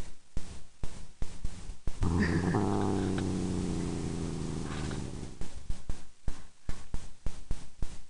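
Tabby cat giving a low, drawn-out growl that starts about two seconds in and fades after about three seconds. Around it come irregular bumps and rubbing against the phone's microphone as the cat's face presses up to it.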